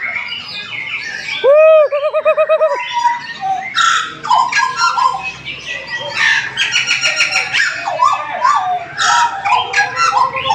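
Several butcherbirds singing over one another. A loud run of looping whistled notes comes about a second and a half in, then dense overlapping chirps, trills and harsh calls.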